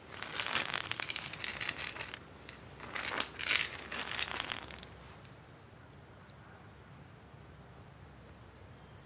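Chalk scraping across a rough gravel-asphalt surface as a line is drawn, in several scratchy strokes over the first five seconds.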